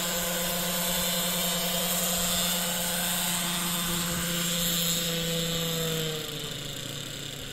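Model Kamov Ka-26 helicopter hovering, its motor and coaxial rotors giving a steady high whine. About six seconds in the pitch falls and the sound drops as it sets down and throttles back.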